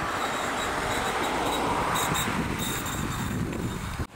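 Road traffic noise with a steady rumble that swells around two to three seconds in, as a vehicle goes by. It cuts off abruptly near the end.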